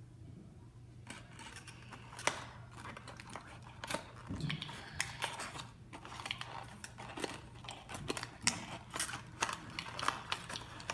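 Toys and small props being handled and moved on a tabletop set: a rapid, irregular run of light clicks, taps and rustles, starting about a second in.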